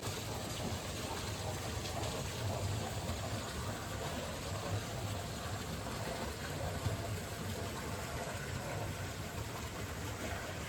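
Mountain stream water rushing in a steady wash.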